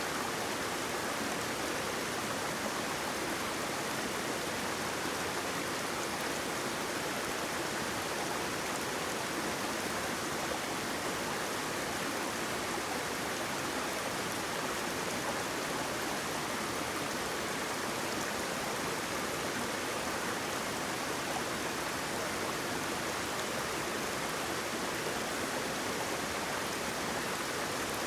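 Flowing water rushing steadily, a constant even hiss with no breaks or changes.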